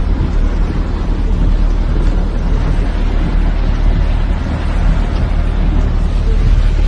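Loud, steady rushing noise with a heavy low rumble, typical of strong storm wind buffeting the microphone.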